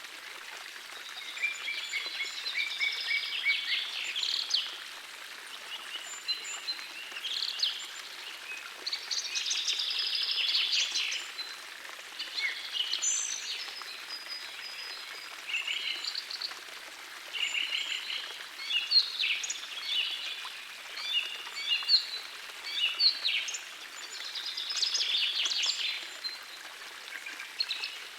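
Songbirds singing in short, repeated phrases of chirps and trills over the steady rush of a gentle forest stream.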